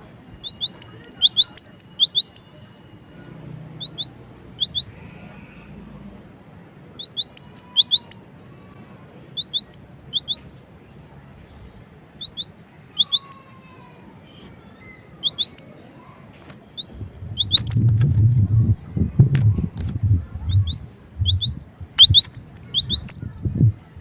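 A cinereous tit (gelatik batu) sings in quick bursts of rapid, high, repeated notes, with a short pause between bursts. In the last third a low fluttering with thumps and clicks joins in.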